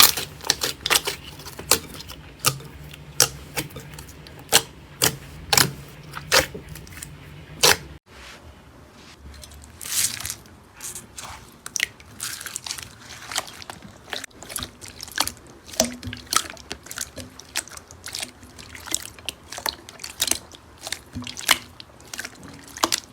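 Slime being squeezed and pressed by hand, giving many sharp crackling clicks and pops. There is an abrupt change about eight seconds in to a quieter run of wet clicks.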